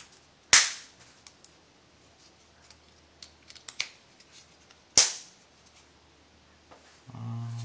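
Two sharp, loud clacks about four and a half seconds apart, with small handling ticks between them: hard parts and batteries being pushed and snapped into a lightsaber's modular electronics chassis. A short low hum comes in near the end.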